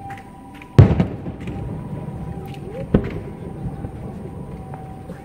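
Aerial fireworks shells bursting: a loud bang about a second in, with a long low rolling echo, then a second, shorter bang about two seconds later.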